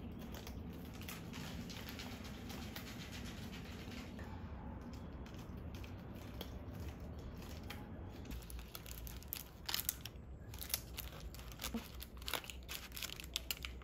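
A cat chewing and crinkling an empty plastic churu treat wrapper. About two thirds of the way in, this gives way to sharper clicks and crackles of a knife and fork cutting into a flaky pastry.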